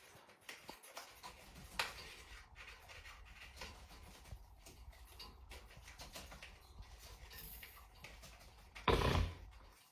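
African grey parrot chewing and tearing at a cardboard box with its beak: scattered small crunches and clicks, with one louder thump near the end.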